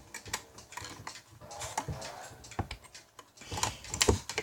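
Irregular light clicks and knocks of a cuckoo clock movement and its parts being handled and taken out of the case, with a louder cluster of knocks near the end.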